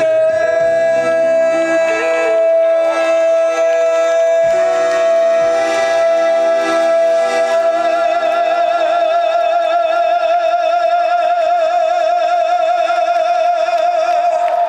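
A male singer holds one long, high sung note over band accompaniment, steady at first, then with a widening vibrato in the second half.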